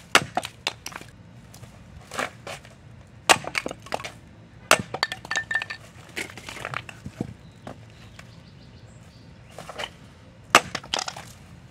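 Kukri blade chopping kindling from a wooden log: a string of sharp chops and the crack of splitting wood at an irregular pace, several in the first half, then a lull of a few seconds before a couple more strikes near the end.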